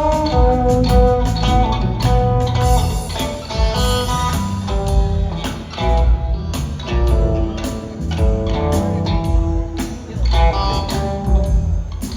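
Live trio of electric guitar, bass guitar and drum kit playing an instrumental break, the guitar playing held single-note lines over the bass and drums, recorded on a phone in the audience.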